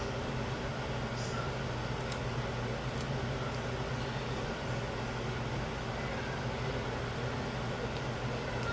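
Steady background hum and hiss, like a fan or air conditioner running, with a few faint clicks about half a second, one, two and three seconds in.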